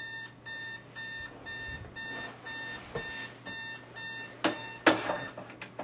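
Electronic alarm clock beeping about twice a second, then two sharp thumps, after which the beeping stops.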